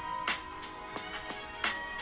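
Background music: a song's instrumental passage, sustained notes over a steady beat.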